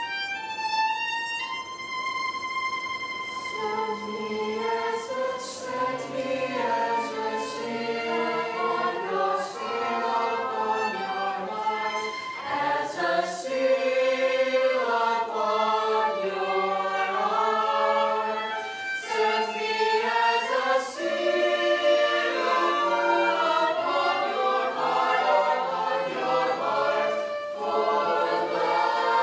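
High school honors choir singing a slow choral song in several voice parts. A violin holds a long note at the start, then the choir comes in about three seconds in.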